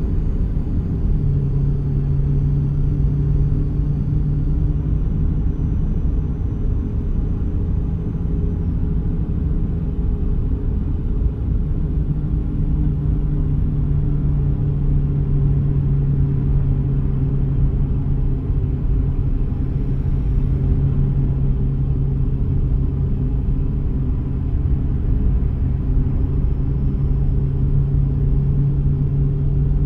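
Steady engine and road rumble heard inside a moving car's cabin: a low, even drone whose pitch holds constant, as when the car runs at a steady speed.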